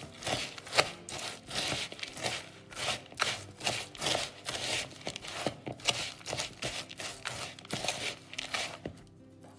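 Metal spoon stirring a sticky mix of cornflakes, seeds and condensed milk in a bowl: crunchy crinkling strokes, about two a second, that stop about nine seconds in.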